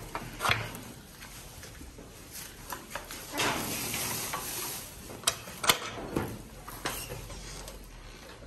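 Rustling of grass with scattered sharp clicks and knocks on wooden pallet boards, as goats pull at and chew the grass in their pen. A longer rustle comes about three and a half seconds in, followed by a quick cluster of clicks.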